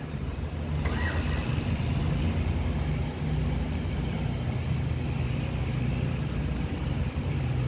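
A motor vehicle running: a steady low engine drone with road noise.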